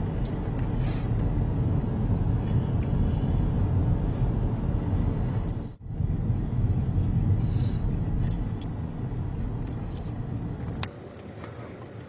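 Car driving along a road, heard from inside the cabin: steady low engine and tyre rumble. It briefly drops out about halfway through, and near the end gives way to a quieter background.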